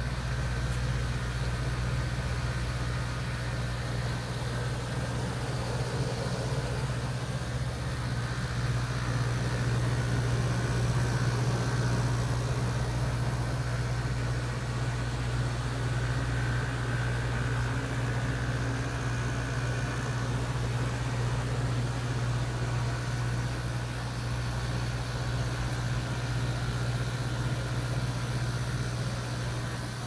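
Window air conditioner compressors converted to a liquid chiller, running steadily with their fans: a constant low hum over a broad hiss. The chiller has been switched on by its thermostat and is pulling the chill box's temperature down.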